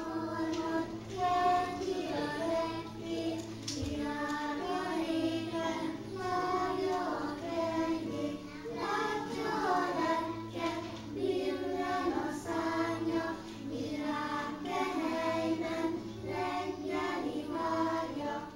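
A group of young children singing a song together in unison, the singing carrying on throughout and stopping right at the end.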